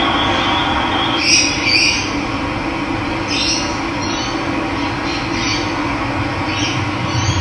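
Steady rush of running water with wild birds giving short chirping calls over it, about seven times, singly or in quick pairs.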